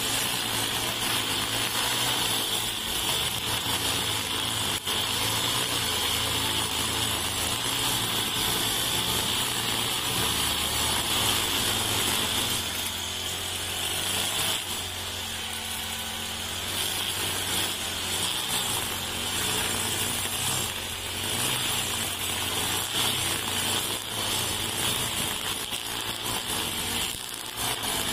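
Four-stroke backpack brush cutter with a nylon-line trimmer head running steadily under load, cutting grass, with a high whine from the spinning line. It eases slightly for a few seconds midway.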